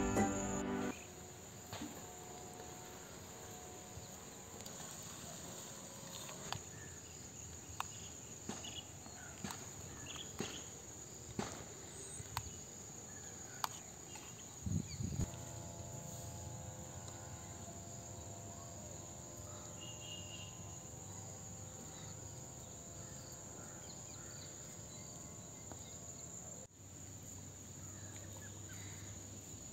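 Steady high chirring of crickets, with scattered light clicks and taps of a small spoon against a miniature steel pot as the mixture is stirred, the loudest about halfway through.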